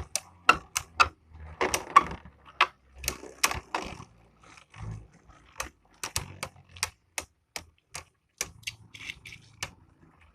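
Two Beyblade Burst spinning tops, Valtryek and Hurricane Fafnir, clashing in a stadium: a run of sharp, irregular clicks and knocks, several a second.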